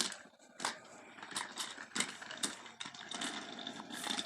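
Small battery-powered toy train running with a rattling mechanical noise and irregular clicks along its track.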